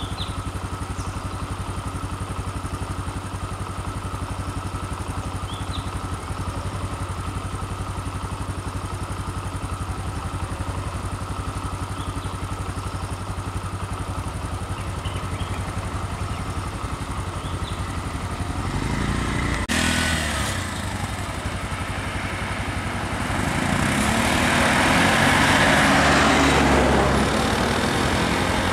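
A vehicle engine idling steadily. From about two-thirds of the way in, an auto-rickshaw's small engine grows louder as it drives past close by, loudest near the end.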